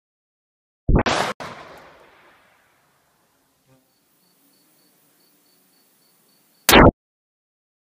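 12-gauge shotgun fired at car doors: a shot about a second in, with a second crack half a second later and a tail ringing out for over a second, then a second, shorter blast near the end.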